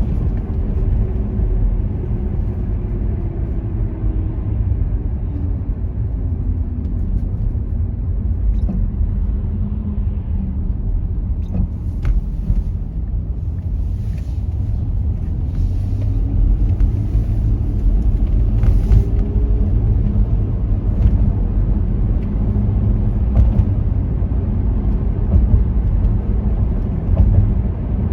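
A car driving on city streets: a steady, low road and engine rumble. The engine note drops over the first several seconds and rises again about halfway through, as the car slows and then speeds up.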